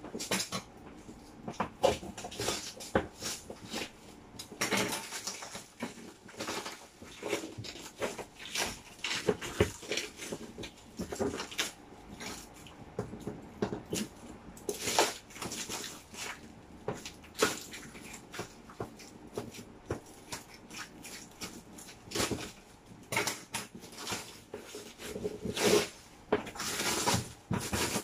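Cardboard box and plastic wrapping being handled and cut open: irregular crinkling, rustling and scraping, with several louder bursts of crackle.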